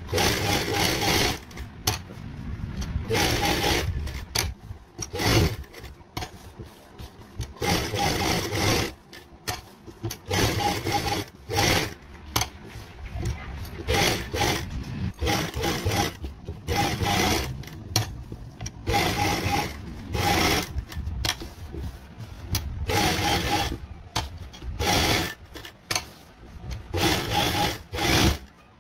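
Sewing machine stitching in short runs of about a second each, stopping and starting over and over, each run a fast even rhythm of stitches.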